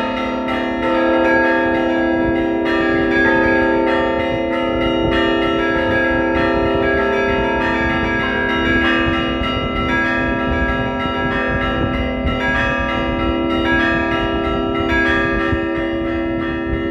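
Russian Orthodox church bells rung by hand in a zvon: small bells strike in a quick, steady rhythm over the long, ringing tones of larger bells.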